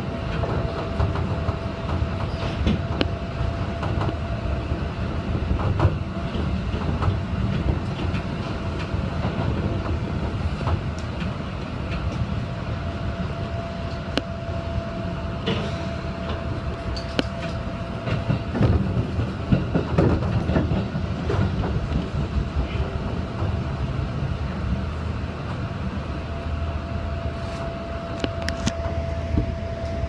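Commuter train running, heard from behind the driver's cab: a steady low rumble with wheels clicking over rail joints. A denser run of clatter comes in the middle as the train crosses the points, and a steady tone fades out partway through and returns near the end.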